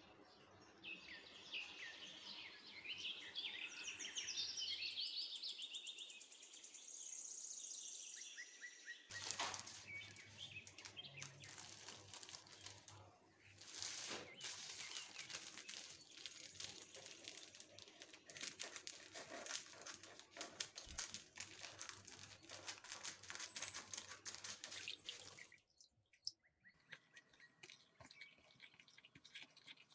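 High chirping for the first several seconds. Then a plastic-wrapped packet of spring-roll sheets is handled and unwrapped, giving a long run of dense crinkling and crackling that stops a few seconds before the end.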